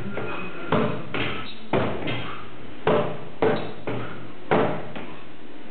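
Sword and shield blows landing on a stack of old car tyres: a quick series of heavy hits, about one a second with lighter ones between, stopping about four and a half seconds in.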